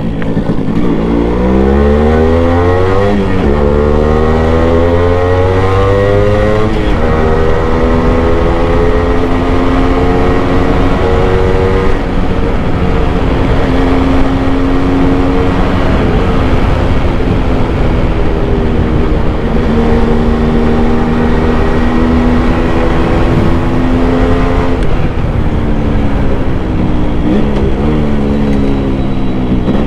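Yamaha RX100's two-stroke single-cylinder engine under way. It revs up and drops back twice in the first seven seconds as it shifts up through the gears, holds a steady cruise, then falls and picks up again near the end. Wind and road noise run underneath.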